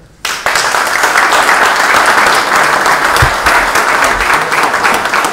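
Audience applauding: dense clapping breaks out suddenly a moment in and holds steady.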